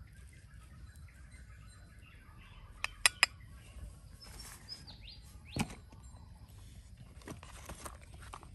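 Quiet outdoor background with birds chirping now and then. A quick run of three sharp clicks about three seconds in, and a single knock a little later, from a small knife and fruit being handled over a ceramic bowl.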